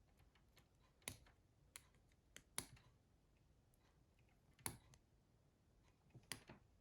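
A few faint, sharp clicks and taps from small plastic phone parts and tools being handled, spaced unevenly, with quiet room tone between them.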